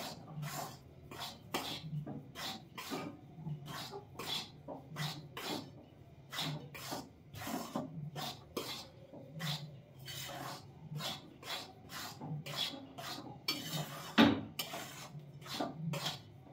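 Metal spatula scraping and knocking against a steel wok as dry wheat flour is stirred while it roasts. The strokes come irregularly, about two to three a second, with one louder knock near the end.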